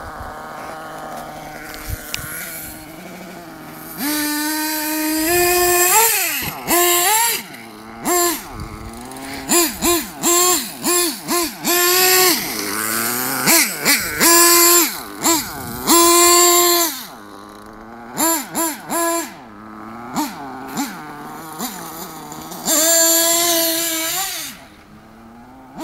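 1/8-scale nitro RC truggy's small glow-fuel engine idling, then revved in many short throttle blips and longer full-throttle runs as the truggy drives, the pitch rising and falling with each burst.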